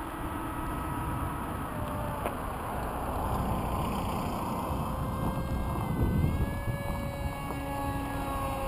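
Electric motor of an RCPowers F-18 foam model jet flying overhead: a thin whine that shifts in pitch with the throttle, dipping and then rising about six seconds in. Wind rumbles on the microphone throughout.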